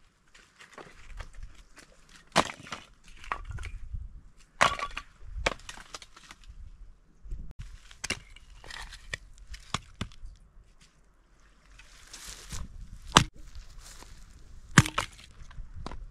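Irregular sharp knocks and cracks of wood being chopped, with rustling between strokes; the loudest strikes come about two and a half seconds in and twice near the end.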